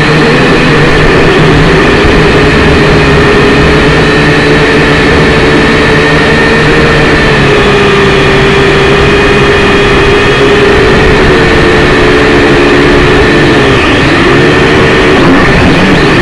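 Syma X5C quadcopter's small electric motors and propellers whining loudly and steadily, the pitch wavering up and down briefly near the end as the throttle shifts.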